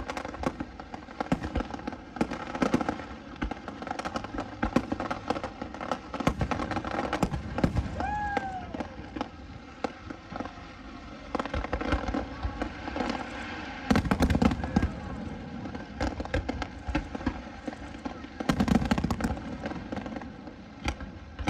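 Fireworks display: a continuous run of bangs and crackles from aerial shells, with two heavier clusters of deep booms in the second half.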